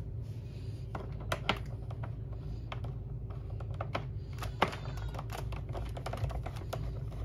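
A screwdriver working the screws out of the plastic base plate of a Hoover upright vacuum: irregular small sharp clicks and ticks of the tip and plastic, thickest about four to six seconds in, over a low steady hum.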